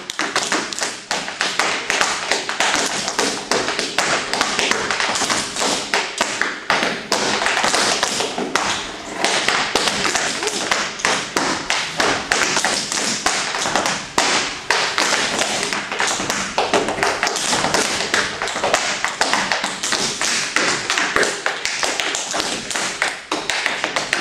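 Tap shoes striking a plywood tap board in an unaccompanied a cappella tap dance: dense, fast runs of sharp taps mixed with heavier stamps, with no music.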